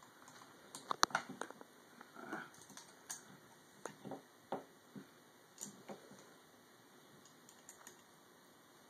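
Scattered light clicks and taps of small metal parts and an Allen key being handled on a Piranha GTi paintball marker while lining up parts for screws. The sharpest click comes about a second in, and they thin out after about six seconds.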